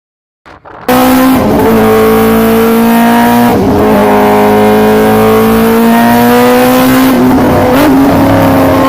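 Motorcycle engine starting up loud and pulling hard, its pitch climbing steadily and dipping briefly at each of several gear changes.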